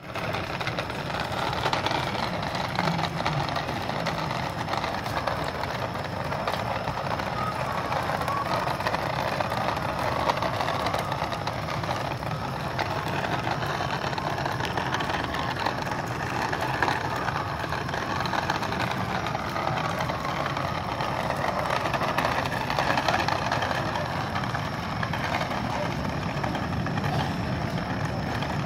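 Small plastic toy dump truck pulled along on a string, its plastic wheels rattling and clattering steadily over concrete paving stones.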